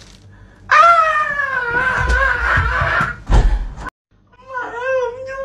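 A person lets out one long, high scream lasting about two seconds, with heavy thuds under its second half. After a brief break, a wavering, whimpering cry starts.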